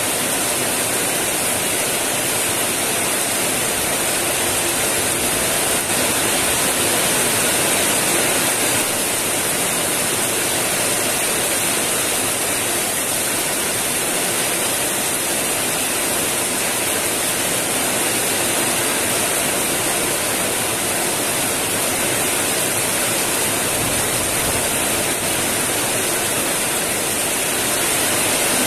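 Heavy rain pouring steadily onto wet, puddled ground, a loud even hiss that holds level throughout.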